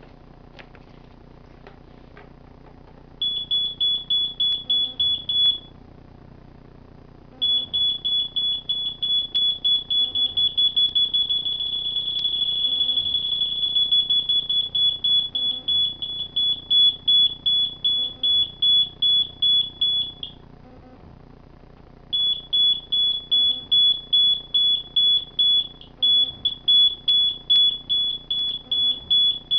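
Electronic proximity beeper of a PC-based distance measurement system: one high tone pulsed at about four beeps a second, the rate changing with the distance to an object held in front of the sensor and quickening until the beeps run together into an almost steady tone. The beeping stops twice for a second or two, when the object is taken out of range.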